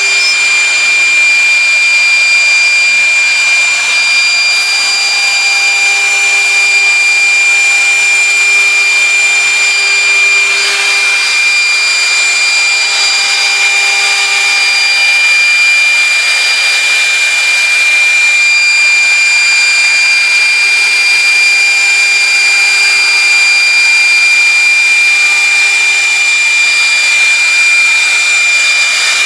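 Industrial machine running steadily: an even rush of noise with a high-pitched whine held throughout.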